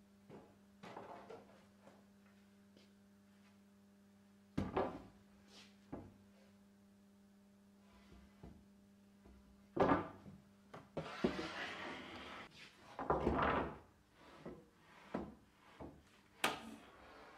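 Walnut boards knocking against each other and the timber rack as one is pulled out and handled: a few sharp wooden knocks spread out, then a couple of seconds of scraping as the board is slid along, then lighter knocks.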